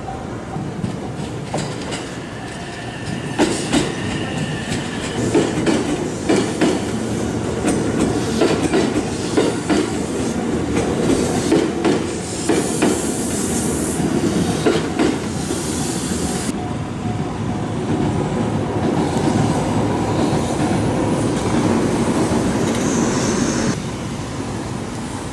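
Electric train passing slowly, its wheels clacking over the rail joints in a long irregular run of clicks over a steady rumble. A high wheel squeal comes in for a few seconds around the middle. The passing dies down near the end.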